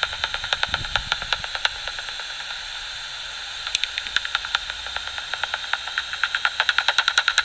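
Rapid regular clicks, about eight to ten a second, over a steady electronic hiss, stopping for a second or two in the middle and then starting again: a bat's echolocation calls heard through a bat detector as it passes overhead.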